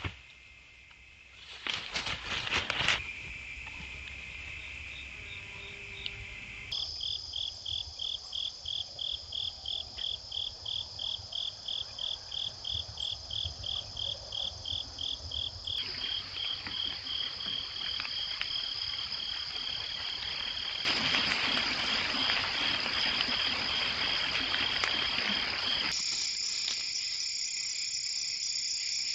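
Night insects such as crickets chirping in high, thin trills. For a stretch the chirp pulses about four to five times a second, then it turns to a steady trill, and the chorus changes abruptly a few times. There are some brief noisy rustles in the first few seconds.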